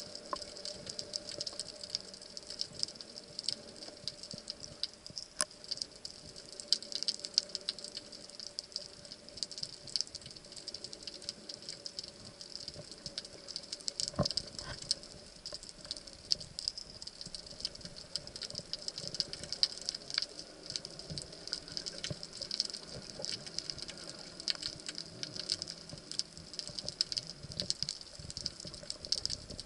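Underwater ambience picked up by a submerged camera: a dense, continuous crackle of tiny clicks, with a faint steady hum beneath.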